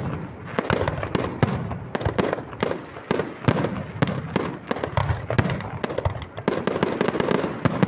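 A fireworks display with a rapid, unbroken run of bangs and crackles from bursting shells, several a second, some louder than others.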